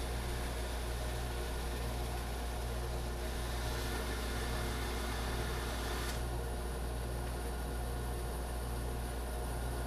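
Laguna bandsaw running steadily while resawing a wooden board, a constant low motor hum under an even cutting hiss that eases slightly about six seconds in.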